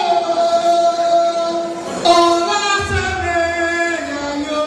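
Music with a woman singing a slow melody in long held notes; a low bass comes in for about a second partway through.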